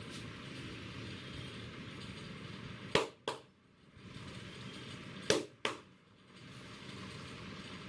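Two pairs of sharp cracks from a barber's hands working a head massage, the first pair about three seconds in and the second about two seconds later, each pair two quick strikes a third of a second apart, over a steady low background hum.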